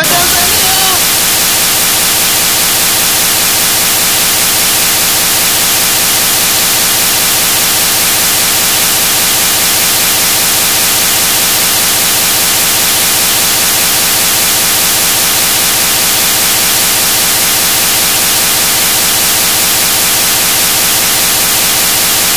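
Loud, steady white-noise static hiss, even across all pitches and unchanging throughout.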